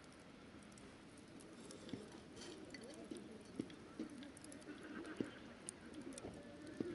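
Small wood campfire crackling as it catches, with scattered sharp pops of burning split firewood.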